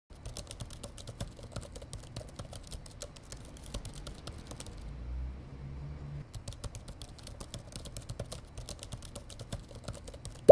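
Rapid keyboard typing clicks, stopping for about a second midway while a low hum carries on, then resuming. A single sharp, louder click comes at the end.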